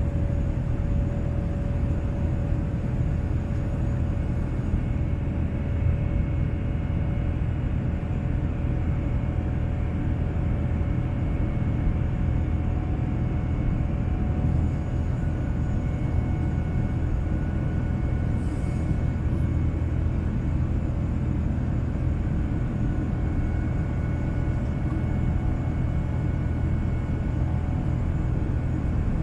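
GE GEnx-1B turbofan engines of a Boeing 787-10 at climb thrust, heard inside the cabin: a steady low rumble with a few faint steady whining tones above it.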